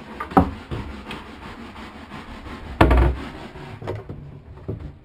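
Handling noises: rubbing and a few wooden knocks, with one loud, heavy thump about three seconds in.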